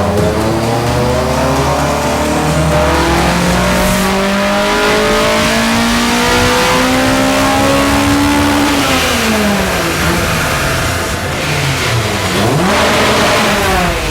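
Honda K20 Type R four-cylinder engine under a full-throttle pull on a chassis dyno. The revs climb steadily for about eight seconds, then fall away, followed by a few quick drops and rises in revs near the end.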